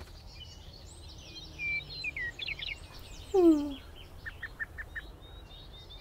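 Birds chirping and twittering over a faint outdoor hiss, with a loud falling whistle about three and a half seconds in, then a quick run of five short notes.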